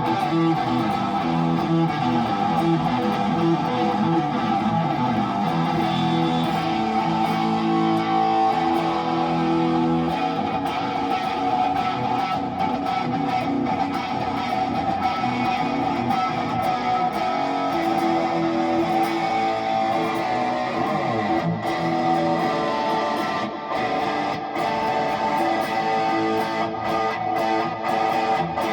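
Gibson Les Paul Custom electric guitar with Custombucker humbucking pickups, played continuously through an amplifier as a pickup sound demo: a run of chords and single notes, with some chords held and left to ring.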